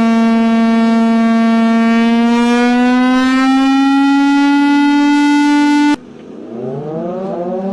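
Civil-defence warning siren sounding one loud, steady tone that rises slowly in pitch and cuts off abruptly about six seconds in. A second, quieter siren then starts, its pitch winding up from low.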